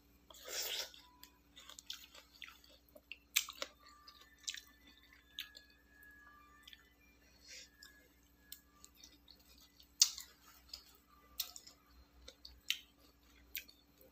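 A person eating: soft chewing and crunching, with a short noisy burst about half a second in and a few sharp clicks scattered through.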